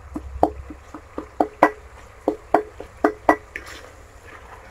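Spoon knocking and scraping against the side of a steel cooking pot while stirring a thick masala as it fries. There are about a dozen short ringing clinks, roughly three a second, which stop about three and a half seconds in.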